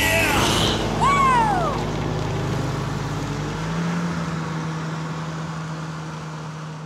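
Snowmobile engine running steadily, fading out toward the end. About a second in, a brief whistle rises and falls in pitch.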